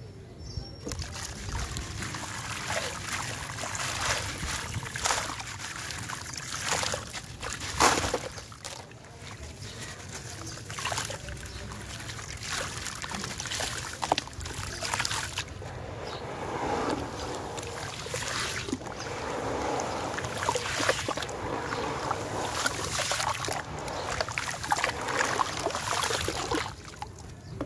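Hands squelching and sloshing through wet sand-cement slurry in a plastic tub: repeated wet splats and squishes as the mud is squeezed, with trickling and splashing as handfuls of slurry drip back into the water. The sloshing grows busier about halfway through.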